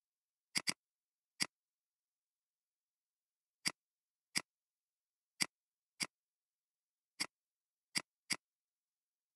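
Computer mouse clicking: about ten short, sharp single clicks at uneven intervals, including a quick double click about half a second in, with dead silence between them.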